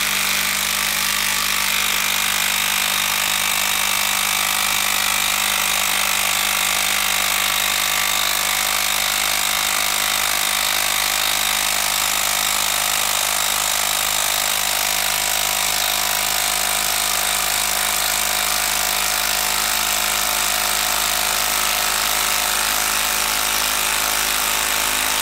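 Makita 12-volt brushed impact driver hammering steadily under load as it drives a 10-inch TimberLOK screw into a log.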